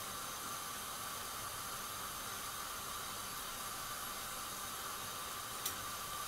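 Hot oil sizzling steadily around balls of mikate (puff puff) dough deep-frying in a wok, with one sharp click near the end.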